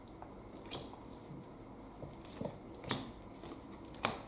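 Magic: The Gathering trading cards being flipped and slid one past another by hand: a handful of short snaps and swishes, the loudest about three seconds in and near the end.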